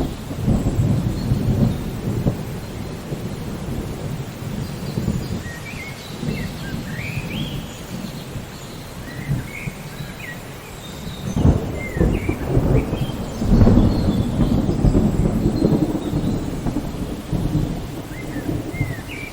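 Steady rain falling during a thunderstorm, with low rolling thunder rumbles that swell about eleven seconds in and again a couple of seconds later.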